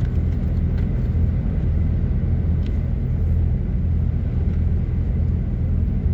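Scania truck cruising slowly, a steady low rumble of engine and road noise heard inside the cab.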